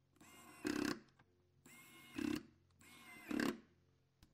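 Small electric precision screwdriver driving the tiny screws of the iPad's metal connector shield: three short whirring runs, each getting louder near its end as the screw is driven home.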